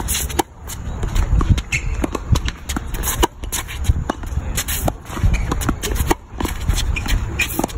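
Tennis ball struck back and forth in a rally, with sharp pops of the racket strings on the ball and players' footsteps scuffing on the hard court between shots, over a low steady rumble.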